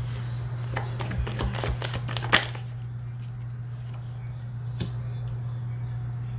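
A deck of tarot cards being shuffled by hand: a quick run of card flicks in the first two seconds or so, ending in one sharp snap, then a single flick near five seconds. A steady low hum runs underneath.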